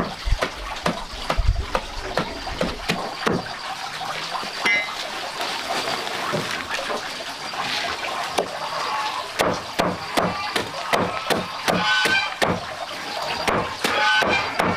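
A long knife chopping a heap of leafy greens on a plastic sack over concrete, in rapid repeated strokes that come closer together in the second half.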